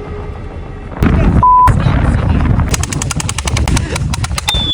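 Electric splat gun (gel-ball blaster) firing on full auto, a fast even run of sharp shots at about eight a second through the second half. A short beep sounds about a second and a half in.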